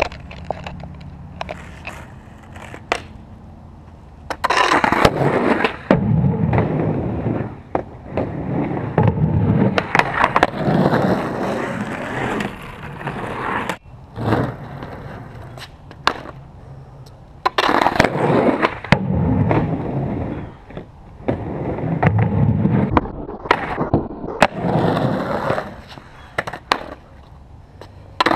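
Skateboard wheels rolling over rough concrete in several passes of a few seconds each, with sharp clacks of the wooden board hitting the ground between them.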